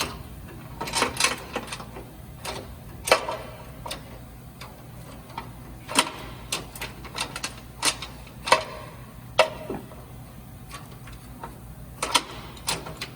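Irregular metal clicks and clinks of a roller chain and hand tools being worked loose on the machine, some with a short ring, over a steady low hum.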